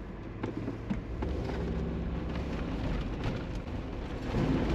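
Mercedes G-Class driving through a water-covered dirt track, heard from inside the cabin: water splashing and sloshing around the tyres and underbody over a low engine rumble, growing a little louder about a second in and again near the end.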